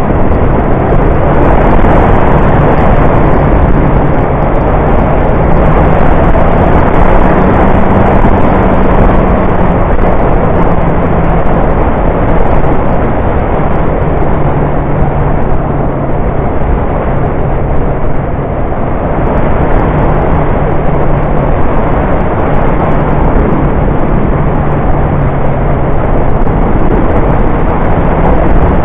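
Motorcycle riding downhill on a mountain road: a steady engine note that shifts slightly in pitch under heavy wind rush on the bike-mounted camera's microphone.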